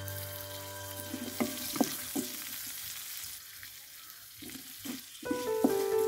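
Onions, green chillies and curry leaves sizzling in oil in a metal wok, with a wooden spatula stirring and knocking against the pan a few times. Soft background music at the start and again near the end.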